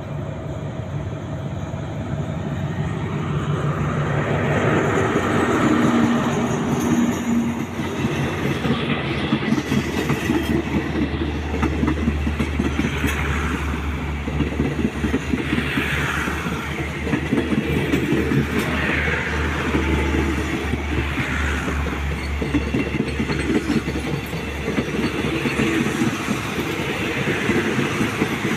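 A diesel-electric locomotive approaching and passing close with its engine running, then passenger coaches rolling past. The wheels make a rhythmic clickety-clack over the rail joints.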